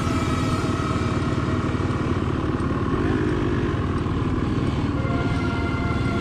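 ATV (quad bike) engine running steadily while riding, a dense rapid engine pulse with no breaks.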